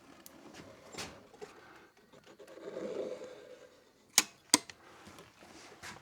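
Caulking gun being pumped: two sharp clicks about a third of a second apart, amid quieter handling knocks and a brief muffled rustle before them.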